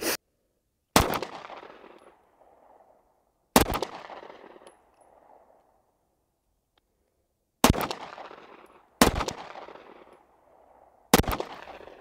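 Five pistol-calibre gunshots fired one at a time in a slow string, unevenly spaced between about one and a half and four seconds apart. Each shot is followed by a long echoing tail.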